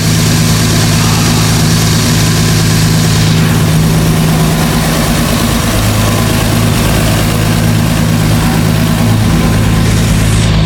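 Single-turbo Toyota 2JZ inline-six engine idling steadily.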